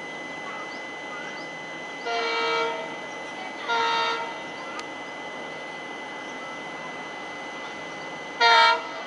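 Diesel locomotive air horn, from an Indian Railways WDP4D approaching with an express train, sounding three blasts. Two blasts of under a second come a second apart, and a shorter, louder one follows near the end, over a steady hiss.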